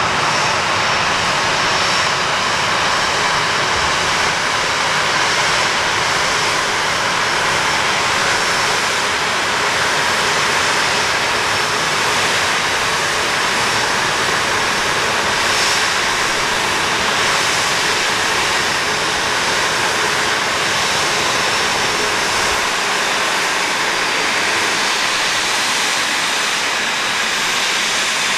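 Boeing 737-800's CFM56-7B jet engines running: a loud, steady rushing noise with a faint high whine over it.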